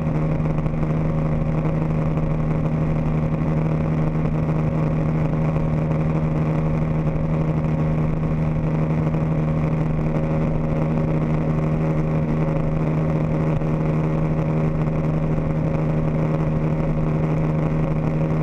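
Johnson Fast Strike 150 two-stroke V6 outboard running at a steady cruising speed, one even low hum with a steady rush of wind and water over it, on a bass boat under way.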